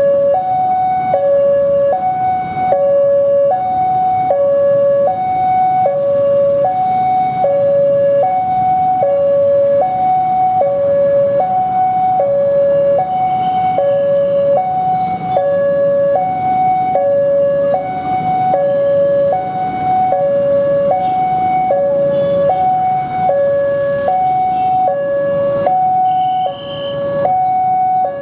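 Railway level-crossing warning alarm sounding a steady two-tone high-low signal, switching about once a second: the warning that a train is coming and the barriers are down. Road traffic runs underneath it.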